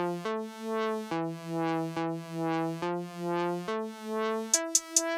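Background electronic music: sustained synthesizer chords that swell and change about every second, with a drum-machine beat of sharp high ticks coming in near the end.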